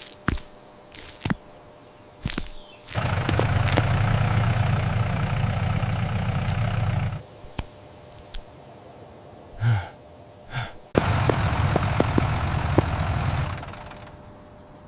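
Tractor engine sound effect running in two stretches, a steady low rumble that cuts off suddenly the first time and fades out the second, with short clicks and knocks between them.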